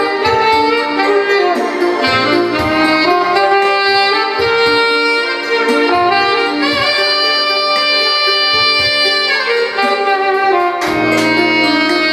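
Alto saxophone playing a slow melody over a backing track, with one long held note of about three seconds near the middle.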